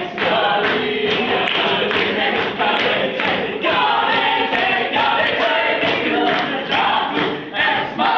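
A school class singing together as a group, many voices at once.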